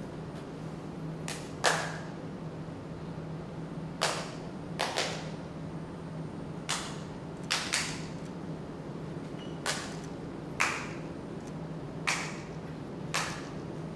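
Sharp crack-like sounds, each with a quick swishing fade, about a dozen at irregular intervals over a steady low hum.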